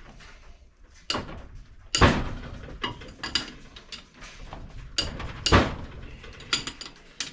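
Metal hand tools knocking and clicking against a Subaru engine block being taken apart: a string of sharp metallic knocks, the loudest about two seconds in and again about five and a half seconds in.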